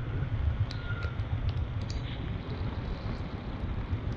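Royal Enfield Standard 350 single-cylinder motorcycle running steadily, with wind buffeting the camera microphone as a low rumble and a few scattered clicks.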